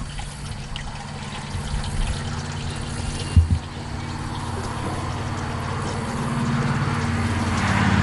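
Water pouring from a pump spout into a wooden trough, a steady splashing rush that grows louder toward the end, over a steady low hum. One brief thump about three and a half seconds in.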